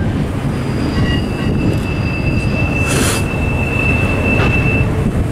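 Double-stack container freight cars rolling past close underneath with a steady low rumble. A high, steady wheel squeal runs from about a second in until near the end, with a short, sharp burst of noise about three seconds in.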